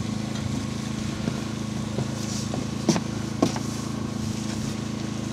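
A small engine running steadily at idle, a low even hum, with two light clicks about three seconds in.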